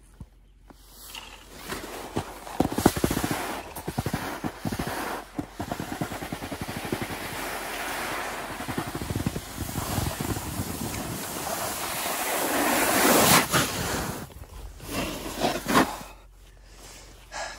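Snowboard base and edges scraping and hissing over snow, with wind rushing on the microphone. The sound builds steadily as the board picks up speed, peaks, then dies away near the end as the board comes to a stop.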